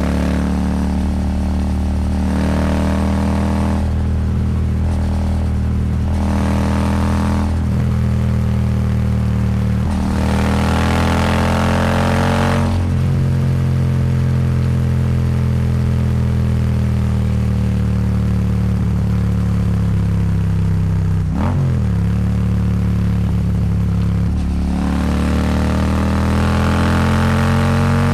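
Royal Enfield Super Meteor 650's 648 cc parallel-twin engine through a slip-on exhaust, pulling hard at wide open throttle: several loud runs rising in pitch, broken by short pauses as it shifts gear. In the middle it runs steadier at cruising speed, then pulls hard again near the end.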